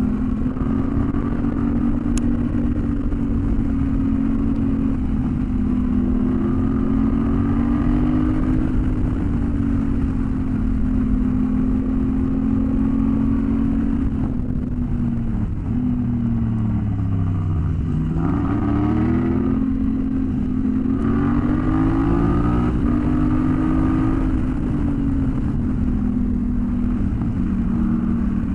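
Adventure motorcycle's engine running at road speed over a steady rush of road and wind noise. About fifteen seconds in, the engine note falls as the bike slows, then climbs again as it speeds back up.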